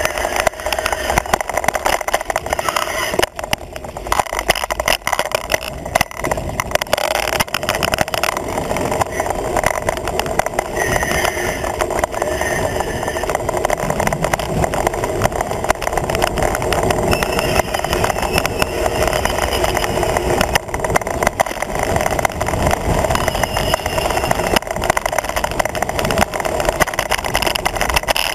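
Wind rushing over the microphone of a handlebar-mounted camera on a road bike moving at speed, mixed with tyre and road noise. The noise is steady and loud.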